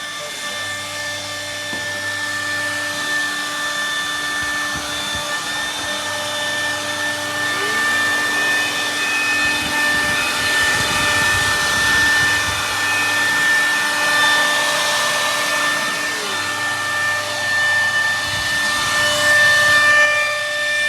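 CNC router spindle running and milling wood: a steady high machine whine over a hiss of cutting. It swells and eases a little in loudness as the bit works.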